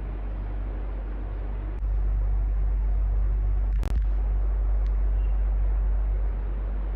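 Electric fan running steadily: a rushing air noise over a low motor hum. It grows louder about two seconds in and eases back near the end, with one sharp click and a split-second dropout near the middle.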